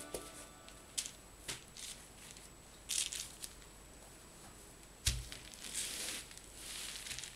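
Bubble wrap crinkling and rustling under felted wool slippers as they are handled and moved about on it, with a few sharp clicks and a soft thump about five seconds in.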